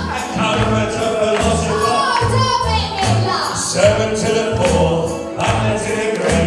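Male and female voices singing a musical-theatre number into microphones over music with a steady bass beat.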